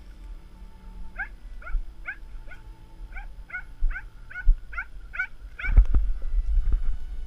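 Cocker spaniel yelping over and over in the hedge cover: about eleven short, sharp yelps, two or three a second. Near the end they stop and a few heavy low thuds follow.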